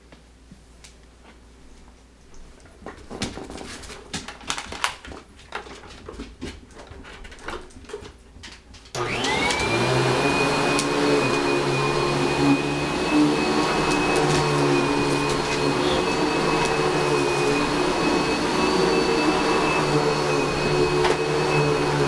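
Scattered knocks and clicks, then an upright vacuum cleaner switches on abruptly about nine seconds in. Its motor whine rises quickly and settles into a steady high-pitched run.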